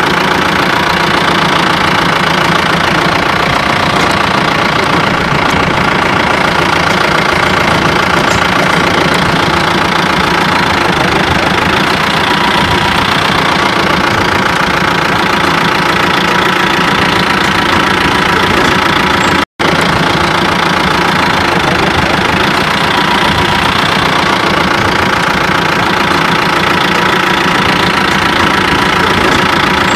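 Vehicle engine running steadily while driving along a road, heard from on board, with a loud, even drone. The sound cuts out for a split second about two-thirds of the way through.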